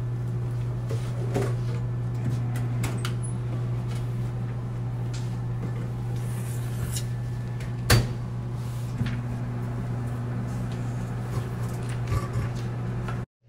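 Kitchen cupboard doors and items being handled at a counter: scattered small clicks and knocks, with one sharp knock about eight seconds in, over a steady low hum.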